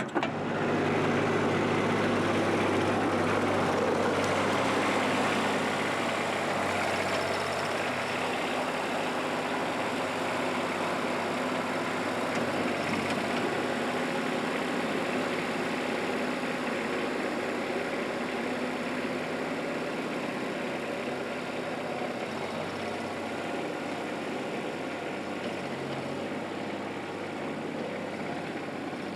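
Kubota diesel engine swapped into a Mustang 1700 skid steer, running steadily at idle and gradually getting quieter.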